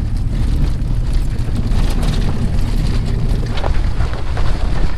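Pickup truck driving over a rough dirt road: a steady low rumble of engine and tyres, with occasional stones clicking under the wheels.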